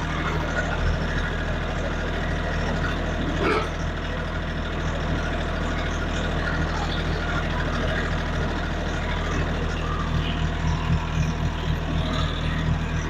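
Kioti tractor's diesel engine running steadily, with a brief knock about three and a half seconds in.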